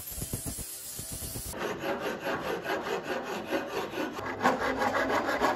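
A hand file scraping back and forth over the edge of a wooden ukulele neck in quick, repeated rough strokes, shaping it by hand. The strokes start about a second and a half in.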